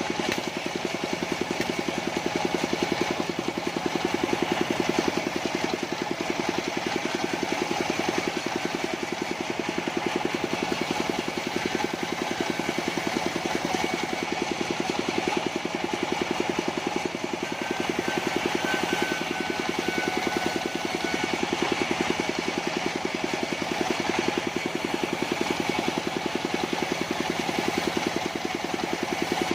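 Engine of a mobile sawmill running steadily, with a fast, even firing beat.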